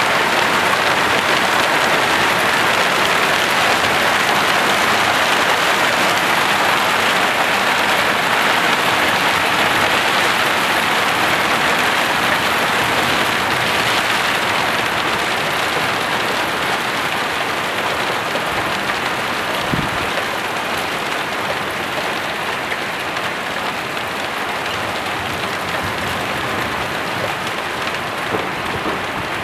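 Heavy downpour of rain and hail pelting garden plants and ground in a dense, continuous patter, easing slightly toward the end.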